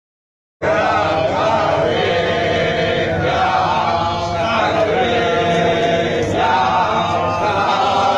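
A group of voices chanting together in a Shiva aarti during the Bhasma Aarti, starting about half a second in after a moment of silence.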